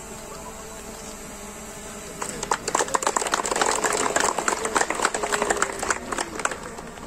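A small group of people clapping. It starts about two seconds in and dies away some four seconds later.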